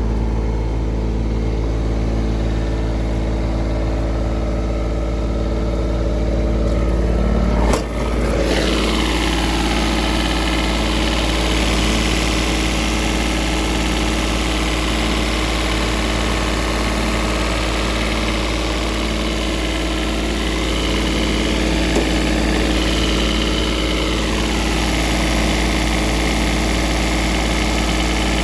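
Diesel engine of a Denyo DAT-270ES2 engine welder-generator running steadily. About eight seconds in there is a brief click, and after it the running sound changes and grows brighter.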